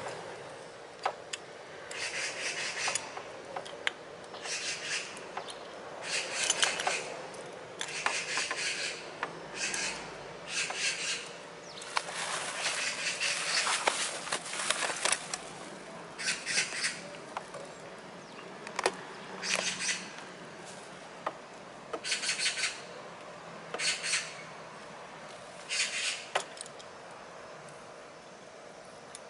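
Hand tools working a scooter's front brake caliper: repeated short metallic scraping, rasping strokes with scattered sharp clicks, as a clamp is used to push the caliper pistons back in.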